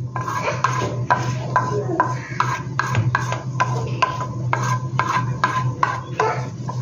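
A wire whisk beats egg batter in a plastic bowl, clicking about three times a second, while a wooden spatula scrapes melted butter from a steel frying pan into the bowl. A steady low hum runs underneath.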